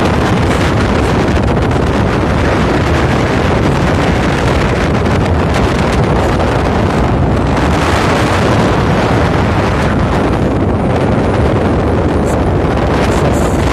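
Strong wind buffeting the microphone on the deck of a moving passenger ferry, a loud steady rushing that swells and eases, over the low rumble of the ship under way at sea.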